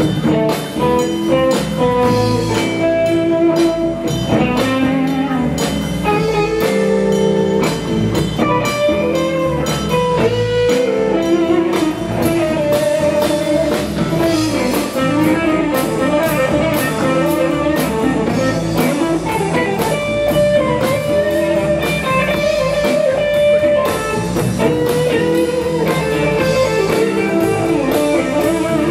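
Live blues band playing an instrumental section: electric guitars, bass guitar and drum kit keep a steady beat while a harmonica plays long bending notes over them.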